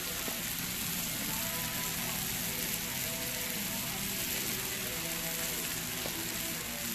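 T-bone steaks sizzling steadily on a flat-top griddle.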